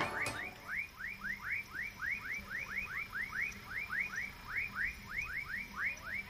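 Frogs calling at dusk: a chorus of short, rising whistled calls, several a second.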